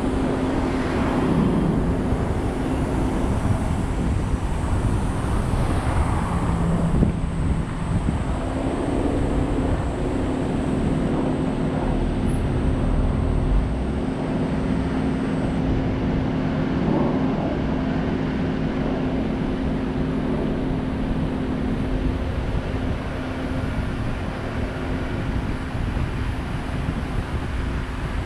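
Car driving slowly, its engine running with a steady hum along with tyre and road noise, picked up by a camera mounted on the outside of the car's roof.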